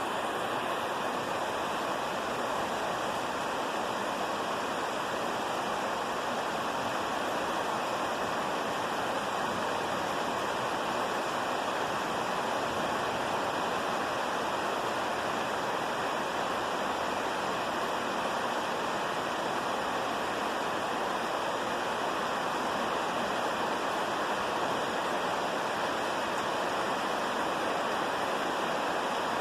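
Steady rain falling: an even, unbroken hiss, with no thunder.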